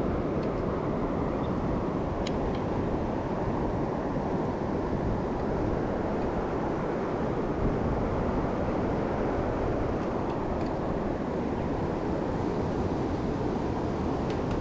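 Mountain stream rushing, a steady, even wash of water noise with a few faint ticks.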